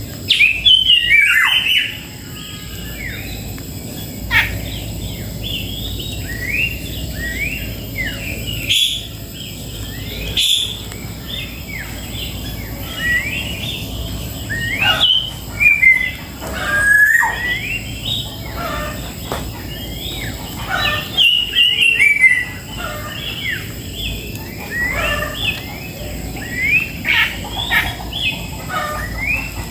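Birds chirping busily: many short, quick rising chirps overlapping, with a few sharp clicks in between.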